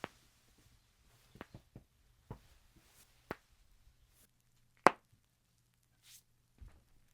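Joints cracking during a chiropractic hand adjustment: a scattered series of short, sharp pops and clicks, the loudest about five seconds in.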